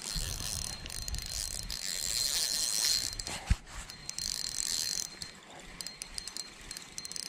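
Fishing reel being cranked, its gears whirring as line is wound in. The cranking stops briefly, with a single knock about three and a half seconds in, then resumes and turns into short stop-start cranks and clicks.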